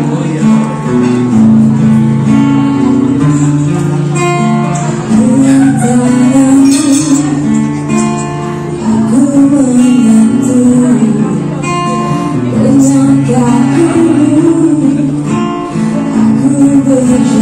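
Live music: a woman singing into a microphone over an amplified guitar.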